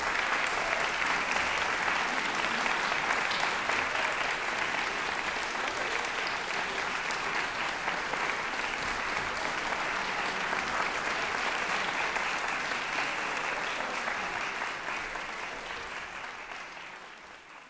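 Audience applauding steadily, the clapping fading away over the last few seconds.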